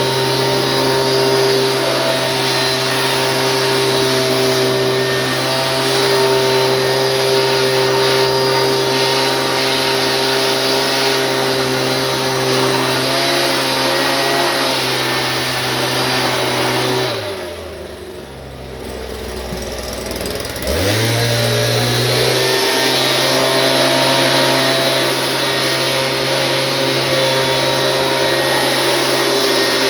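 Small gasoline engine running steadily at high speed. About two-thirds of the way through it is throttled down toward idle for a few seconds, then brought back up to full speed.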